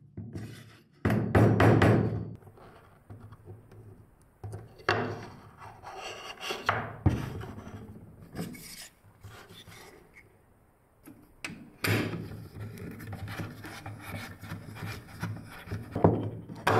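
A wooden mallet taps plywood a few times about a second in, driving dowels into the parts. Then come plywood pieces scraping and rubbing on the workbench as they are handled and fitted, with scattered wood-on-wood knocks.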